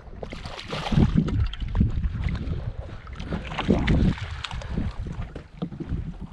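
Water lapping and slapping against the side of a small boat, with wind buffeting the microphone.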